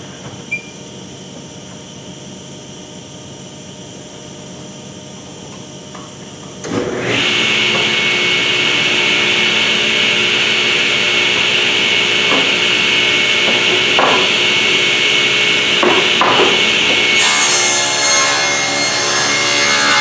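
Table saw switched on about seven seconds in, spinning up and running steadily at speed with a high whine. Near the end the blade starts ripping a board lengthwise, adding a higher, rasping cutting sound.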